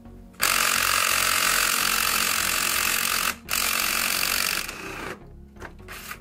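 Cordless impact driver hammering as it loosens the camshaft bearing cap bolts on a Hyundai 1.8 Nu engine: one long burst of nearly three seconds, a brief stop, a second burst of about a second, then a few short spurts near the end.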